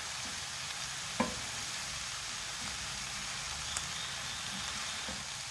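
Wooden spoon stirring boiled fusilli and vegetables in a nonstick pan, over a steady low sizzle from the pan on the heat. A light knock of the spoon against the pan about a second in, and a fainter one later.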